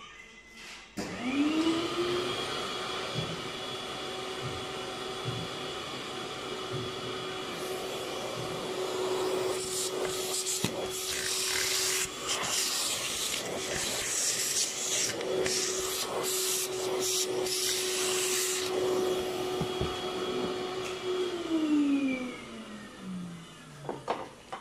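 A vacuum cleaner motor switches on about a second in, quickly rises to a steady whine, and runs with rough rushing, rasping airflow noise in the middle stretch, then switches off and winds down over the last few seconds.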